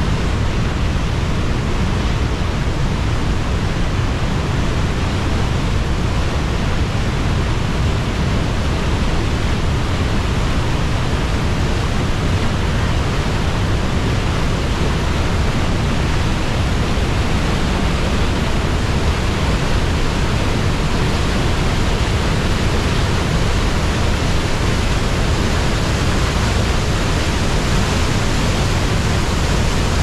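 River water pouring over a wide weir in a white-water cascade: a loud, steady rushing of water.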